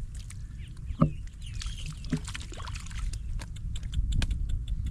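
Water sloshing and splashing in a flooded rice field, over a steady low rumble with scattered clicks and a short pitched sound about a second in; it gets louder toward the end.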